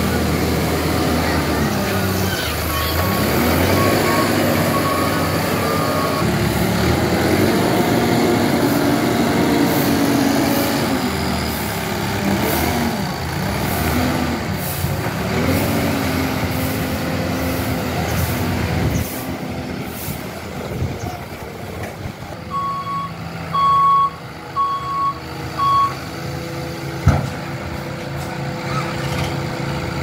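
Tata Hitachi Shinrai Prime backhoe loader's diesel engine working under load, its pitch rising and falling repeatedly as it pushes grain, then running steadier and quieter. A reversing alarm beeps a few seconds in and four more times near the end, followed by a single sharp knock.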